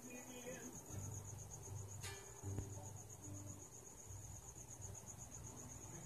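A cricket chirping, a high pulsing trill at about five chirps a second. Low, muffled sounds come and go underneath, with a single click about two seconds in.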